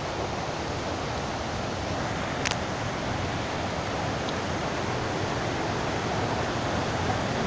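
Steady rush of a nearby waterfall and river water. A single short click about two and a half seconds in.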